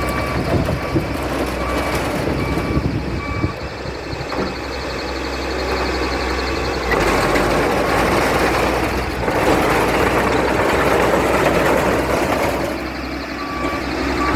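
Komatsu D31E bulldozer's diesel engine running, with its backup alarm beeping at an even pace for the first few seconds and again near the end. The engine grows louder about seven seconds in.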